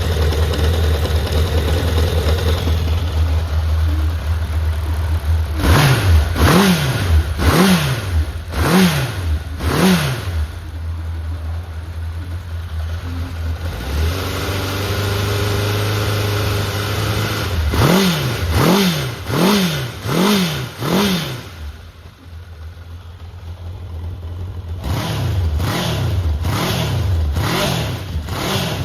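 Honda CB750F (RC04) air-cooled inline-four engine idling steadily, blipped on the throttle in three runs of quick revs, about five short revs each, at intervals of roughly one a second. It runs smoothly, with no abnormal noise by the seller's account.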